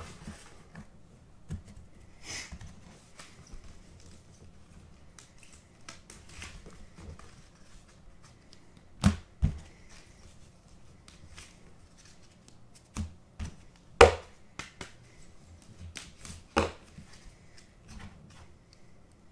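A stack of trading cards being handled and sorted on a table: soft card slides and rustles, with several sharp taps of cards or hands against the tabletop. The loudest tap comes about two-thirds of the way through.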